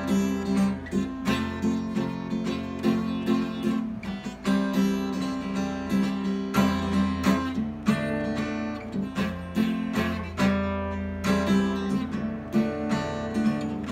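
Solo acoustic guitar playing chords, strummed and picked in an even rhythm over sustained bass notes.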